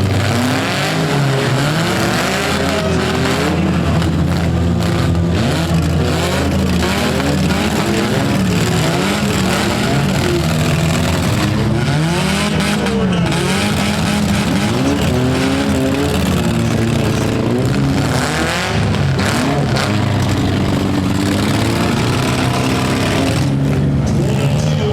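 Several four-cylinder demolition derby cars' engines running and revving together, their pitches rising and falling as they accelerate and back off.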